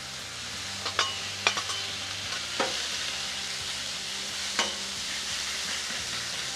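Diced steak and chicken sizzling on a hot flat-top griddle as the steak is laid down, a steady hiss. A metal spatula clicks sharply against the bowl and the griddle steel about four times as it pushes the meat off.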